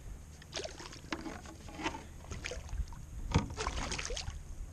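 A hooked striped bass splashing and thrashing at the water's surface beside a kayak as it is hand-lined in, in short splashy bursts, loudest about three and a half seconds in.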